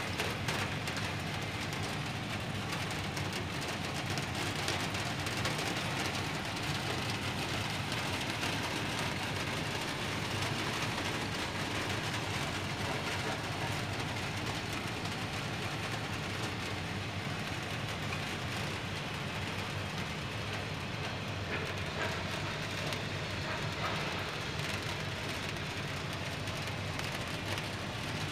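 Steady rain falling on a rooftop and its metal ductwork: an even hiss with a low rumble underneath.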